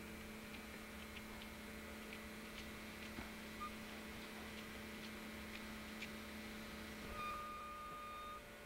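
Faint steady hum with a few scattered light ticks; near the end a faint high steady tone sounds for about a second.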